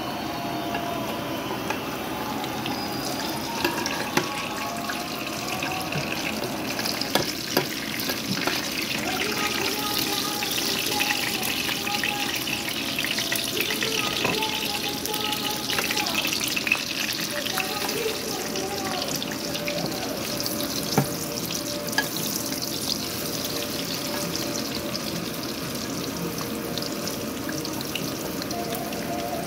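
Battered fish cakes frying in hot oil in a skillet: a steady sizzle, with a few sharp clicks of spatulas against the pan as the cakes are lifted and turned. A praise song plays faintly behind.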